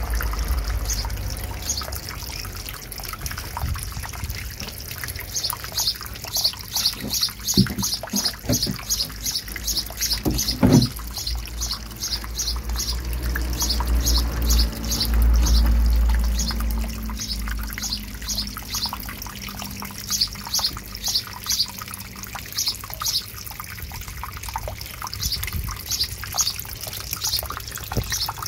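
Water from a small fountain pump splashing and trickling steadily into a turtle tank. A bird chirps over it, about three chirps a second, starting around five seconds in. A few dull knocks come near eight and eleven seconds in.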